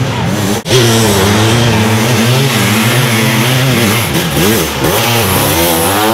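Several sidecar motocross outfits racing through sand, their motorcycle engines revving up and down in overlapping pitches. The sound drops out briefly just over half a second in, at an edit.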